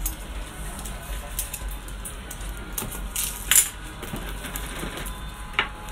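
Plastic shrink-wrap on a smartphone box crinkling and crackling as it is slit and peeled off, in scattered sharp crackles, the loudest about three and a half seconds in. A steady low hum runs underneath.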